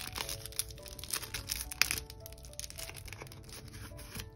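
Soft background music with held notes, over the crinkling and crackling of packaging being handled and torn open around a small surprise packet, with a sharper crack a little under two seconds in.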